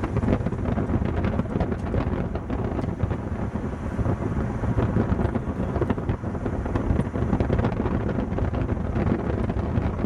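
Wind buffeting the camcorder microphone: an irregular, fluttering rumble in the low end.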